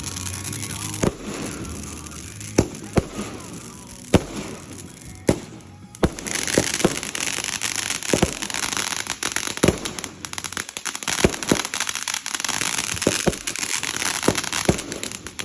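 Fireworks going off: a string of sharp bangs with crackling hiss between them, more frequent and dense through the second half.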